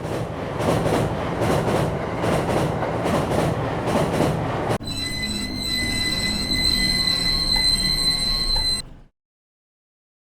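Train running, with a rhythmic wheel clatter over rail joints about twice a second. About five seconds in, this gives way abruptly to a steady high-pitched squeal of wheels and brakes as the train pulls to a stop. The squeal cuts off about a second before the end, leaving silence.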